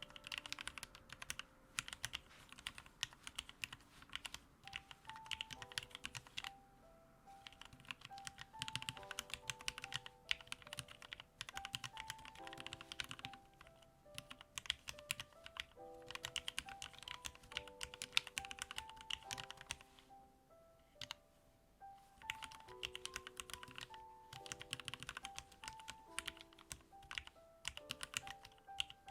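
Typing on an OLKB Planck 40% mechanical keyboard with lubed Gateron Ink Black linear switches. The keystrokes come in quick runs broken by brief pauses, over soft background music.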